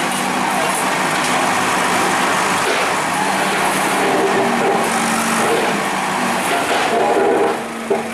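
Bulldozer's diesel engine running steadily under a dense, continuous mechanical noise.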